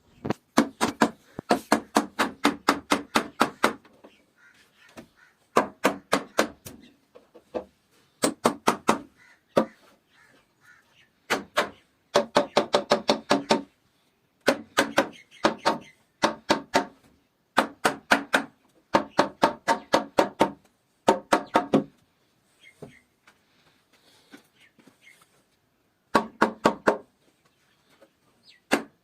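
Rapid hammer strikes on wood, about seven a second, in bursts of one to three seconds separated by short pauses.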